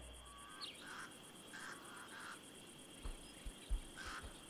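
Faint insects chirping: a steady high buzz with a fast, evenly pulsing trill above it. A few short low thumps come in the second half.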